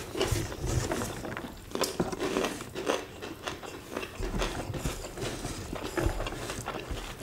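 Close-up chewing and lip smacking of two people eating rice and beef sambal by hand, with irregular small clicks and wet smacks. Fingers squeeze and gather rice on a wooden tray.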